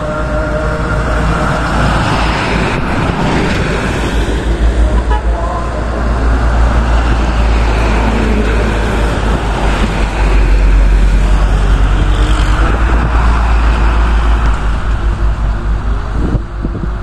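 Heavy diesel trucks passing close by one after another, a steady deep engine rumble with tyre noise on the road, loudest about ten seconds in as a container tanker truck goes past.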